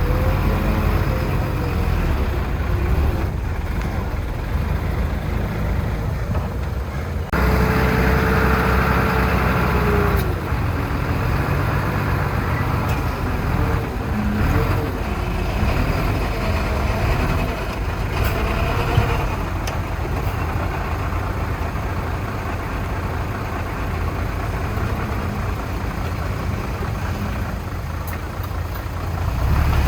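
Diesel engines of heavy earthmoving machinery running steadily under load, with a sudden change in the sound about seven seconds in.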